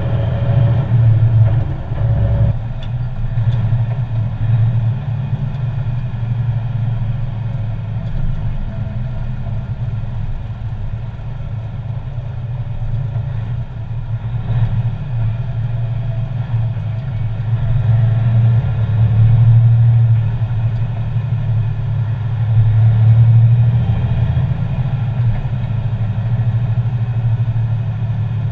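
Diesel semi-truck engine running steadily as a low drone, swelling louder twice in the second half as the load or revs change.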